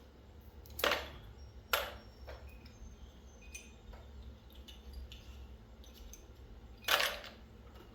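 Small pieces of scrap copper tubing clinking as they are picked up and tossed onto a pile: three sharper clinks, about a second in, just under two seconds in and about seven seconds in, with a few fainter ticks between, over a low steady hum.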